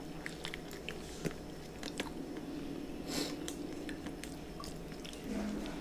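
A person eating rice and curry by hand: chewing and lip-smacking, heard as scattered small wet clicks, with one short breathy burst about three seconds in.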